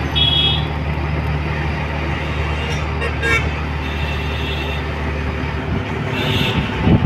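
Road traffic: a truck's engine running close by with a steady low hum that fades out near the end, and short horn toots near the start and about three seconds in.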